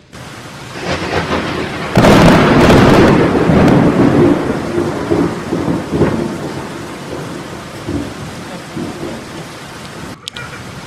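Steady rain with a loud roll of thunder that breaks about two seconds in and rumbles away gradually over the next several seconds.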